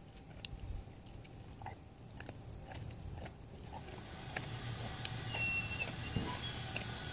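A beagle gnawing on a rawhide chew bone: a run of small, irregular clicks and crunches. From about four seconds in, a steady low rumble swells up behind the chewing.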